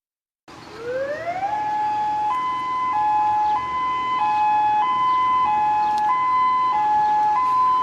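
Electronic two-tone alert siren: a tone glides up over about a second, then switches back and forth between two pitches about every 0.6 seconds, hi-lo like a European ambulance siren. It is the alarm tone of an Emergency Alert System–style alert.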